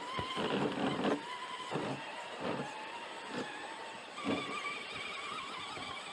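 Axial Wraith RC rock crawler's electric motor and gears whining as it is driven over rocks, the whine shifting in pitch with the throttle, with several knocks and clatters of the tyres and chassis on rock.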